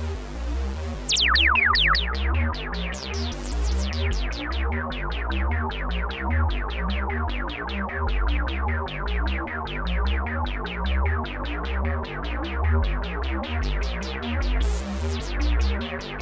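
Behringer Poly D analog synthesizer playing a fast repeating pattern of short plucky notes, about five a second, over a steady pulsing bass. A hiss of noise cuts off about a second in, and another noise swell comes in near the end.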